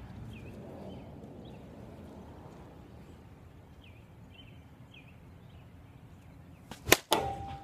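An Avarice G2 slowpitch softball bat cracks a softball off a batting tee with one sharp, loud hit near the end. A second smack with a short ringing tone follows about a quarter second later. Before the swing there are only faint short bird chirps over a quiet outdoor background.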